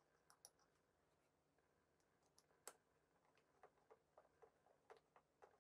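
Faint small metal clicks and ticks of a bolt being fitted and turned by hand with a driver into a flanged insert nut through two wooden boards. About a dozen clicks, the sharpest a little under three seconds in, with a run of them in the second half.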